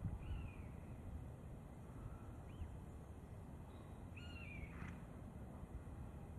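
Three short, high, arching animal calls, the last one the longest, over a low steady rumble.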